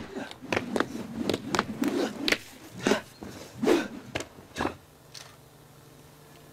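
Sharp slaps and snaps of a martial artist performing a kung fu form: about fifteen quick strikes in the first four and a half seconds. Then only a faint steady hum.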